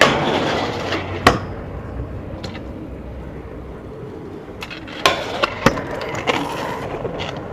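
Stunt scooter grinding a metal handrail, with a sharp clack about a second in, then its small wheels rolling on pavement and several more clacks later on.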